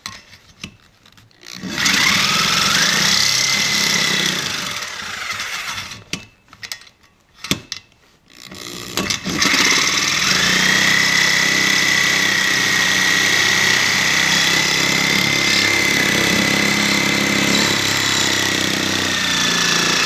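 Corded reciprocating saw with a carbide-tipped blade cutting metal. It spins up with a rising whine about two seconds in, runs for a few seconds, stops with a few knocks, then starts again about nine seconds in and runs steadily through the cut.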